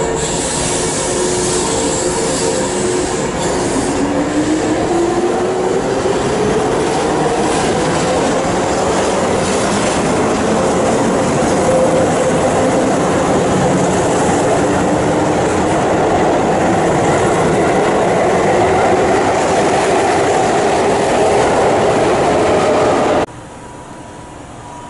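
Keihan express train pulling out along the platform: the traction motors' whine rises in pitch as it gathers speed, over a steady rumble and clatter of wheels on the rails. The sound cuts off suddenly near the end.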